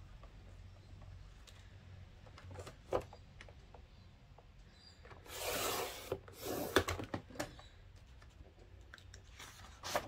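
Sliding paper trimmer cutting a sheet of patterned paper: the cutter head is drawn along its rail in one scratchy stroke of about a second, followed by a few sharp clicks. Another short scrape comes near the end.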